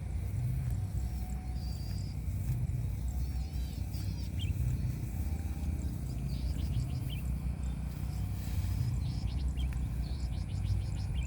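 Small birds chirping now and then over a steady low rumble, with a faint steady high tone underneath.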